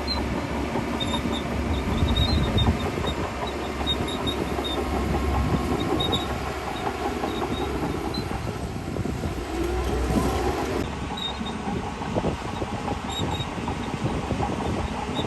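Heavy diesel earthmoving machinery at work: a steady low engine rumble with irregular clanking and clatter, and a brief rise in pitch about ten seconds in.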